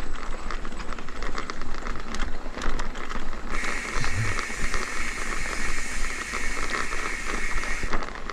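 Mountain bike rolling over a rough track, its tyres and frame rattling over a low rumble. About three and a half seconds in, a steady high hiss starts, then cuts off abruptly about four seconds later.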